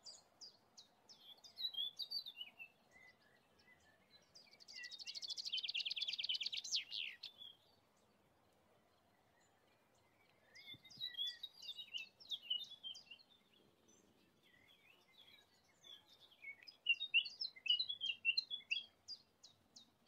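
Songbirds singing: short phrases of quick chirping notes, with a fast buzzing trill about five seconds in that ends in a falling note, and more chirping phrases in the second half.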